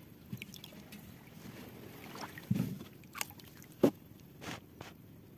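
Scattered knocks and bumps on a wooden boat's hull and gunwale as it is handled and moved, with a dull thump about halfway through and a sharper, louder knock near four seconds, over a faint rustle of water and weeds.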